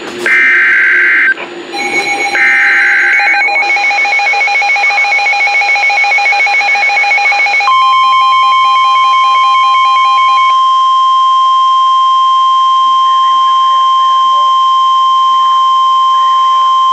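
Emergency Alert System SAME header: two short buzzy data bursts about a second each, overlapped from about two seconds in by a rapid pulsing alert beep. About eight seconds in, the long steady single-pitched NOAA Weather Radio warning alarm tone begins, which announces a new warning.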